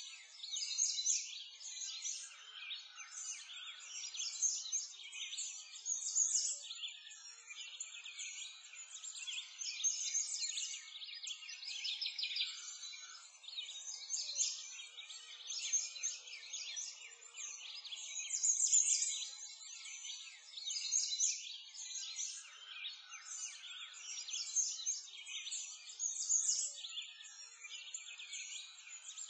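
Birdsong ambience: many small birds chirping and trilling continuously, high-pitched, with nothing low underneath.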